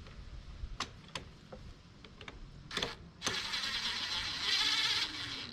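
A few clicks of handling, then a small power driver runs for about two seconds, turning a carburetor mounting screw into place.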